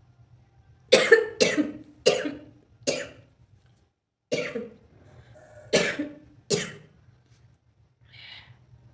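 A person coughing hard seven times, four coughs and then three more after a short pause, irritated by the fumes of dry red chilli.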